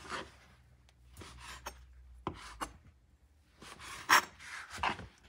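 Chef's knife cutting slices of bread into rectangles on a cutting board: a series of short, separate cuts, the loudest about four seconds in.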